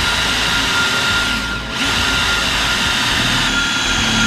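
Cordless drill running under load as a twist bit bores into the brass fitting on top of a CO2 cylinder. The motor whine is steady, eases off briefly about a second and a half in, then picks up again.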